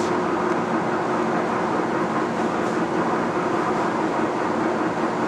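LeBlond 31 x 108 Model NI engine lathe running under power: a steady whir of the motor and geared headstock, with a constant hum through it.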